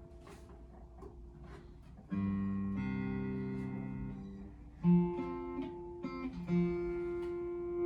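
Martin Road Series acoustic-electric guitar strummed once about two seconds in, the chord ringing and fading, then a few single notes plucked and left to ring; it is being played to check that the repaired soundhole pickup still works. A few faint taps come before the chord.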